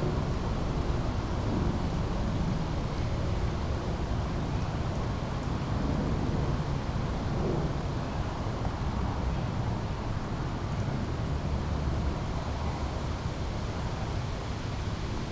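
Small brook flowing steadily, a continuous rush of water with a low rumble underneath.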